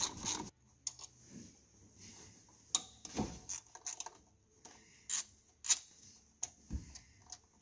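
Hand ratchet clicking while 10 mm bolts are undone: a quick run of ratchet clicks in the first half-second, then scattered single clicks and light metal taps.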